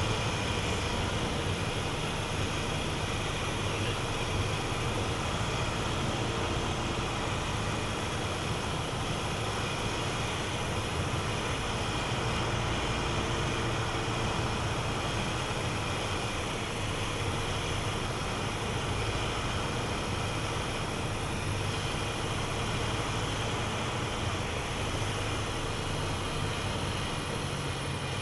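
Cabin noise of a Piper PA-28 Archer III on final approach to landing: the four-cylinder Lycoming O-360 engine and propeller drone steadily under a wash of airflow noise, with no distinct bumps.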